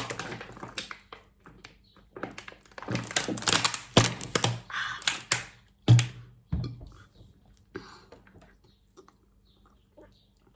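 A person eating close to the microphone: bursts of wet mouth clicks and chewing sounds, with a louder thump about six seconds in. After that only a few small clicks are left.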